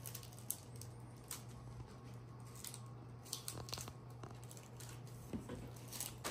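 Quiet room tone with a low steady hum, and faint scattered clicks and rustles of small objects being handled.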